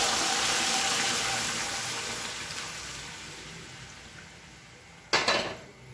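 Hot tempering oil in a kadai hissing loudly as cooked moong dal sambar is poured in; the sizzle fades steadily over several seconds as the liquid cools the oil. A short, loud noisy sound comes near the end.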